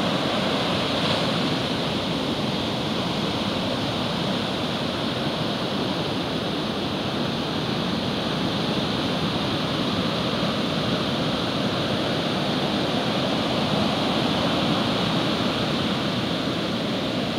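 Atlantic ocean surf, waves of about 2 to 3 feet breaking and washing up the sand in a steady rush of noise.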